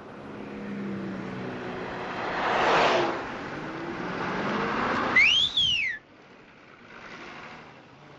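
Cars passing on a nearby road, the loudest going by about three seconds in with its pitch dropping as it passes. Near the middle comes a single whistle that rises and falls in pitch, lasting under a second, after which the traffic sound drops away abruptly.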